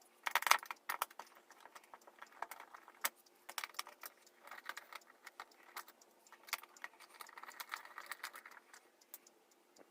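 Small screws being unscrewed from a plastic wall clock case: scattered sharp clicks with stretches of faint scraping and rattling.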